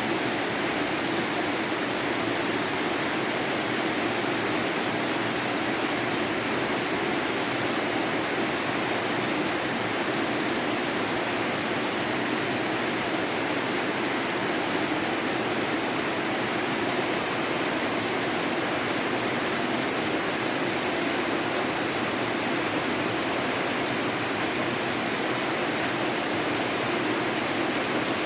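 Rain falling steadily during a storm, an even, unbroken hiss.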